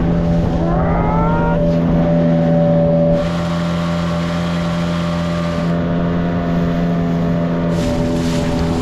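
Motorboat engine running steadily under way, with a brief rising whine about a second in. It gets slightly quieter about three seconds in.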